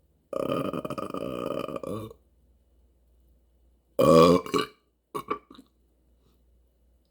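A person burping: one long, drawn-out burp, then a shorter, louder burp about four seconds in, followed by a couple of small quick ones.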